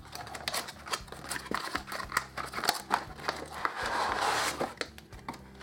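Cardboard retail box with a clear plastic window being opened by hand: clicks and scrapes of the flaps and crinkling plastic packaging, with a longer rustle about four seconds in.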